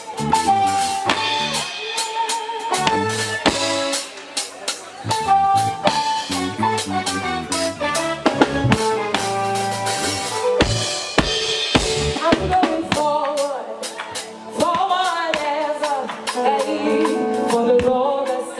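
Live band playing a gospel groove: drum kit with rimshots, snare and bass drum over bass and keyboard chords. A voice comes in singing about two thirds of the way through.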